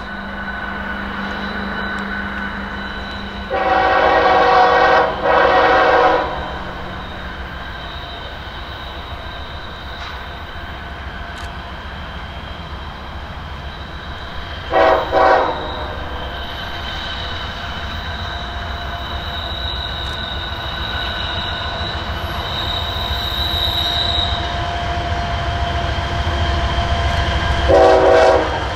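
Air horn of BNSF diesel freight locomotives sounding two long blasts, then two short blasts about ten seconds later, and another blast starting near the end. Under it the train's steady rumble grows louder as it approaches.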